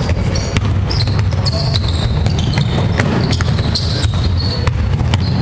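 Basketball game on a wooden hall court: the ball bouncing and players' shoes squeaking in short bursts, over a steady low hum of the hall.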